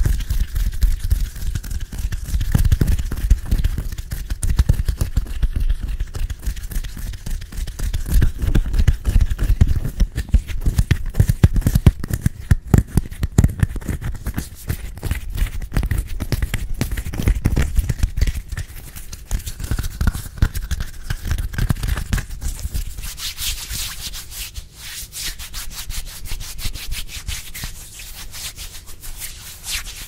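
Bare hands rubbing and cupping together right up against a microphone, making a fast, dense dry crackle mixed with deep thuds from the close mic. About 23 seconds in, the thuds drop away and the rubbing turns lighter and crisper.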